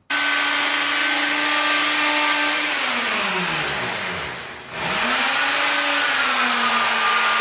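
A handheld electric power tool's motor starts suddenly and runs with a steady whine. About three seconds in it slows right down, then speeds back up and runs steady again.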